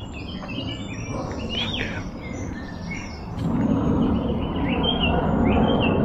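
Woodland songbirds singing and calling: short chirps and brief whistled phrases. About halfway through, a louder low rushing noise comes in under them.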